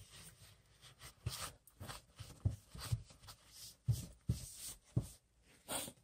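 Irregular soft rubbing and rustling with light knocks as a paper towel wipes lime scale off the faucet body.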